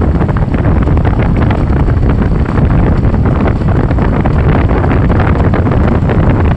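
Loud, steady wind buffeting the microphone over the rumble of a moving vehicle.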